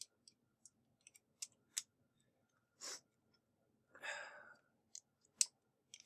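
Faint, scattered small clicks and snaps of plastic tool-less mounting brackets being pressed onto a 3.5-inch hard drive, with a short rustle about four seconds in.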